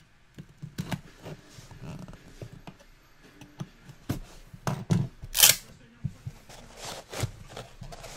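Scattered small clicks and taps, with a brief rustle about five seconds in, the sounds of handling on a desk.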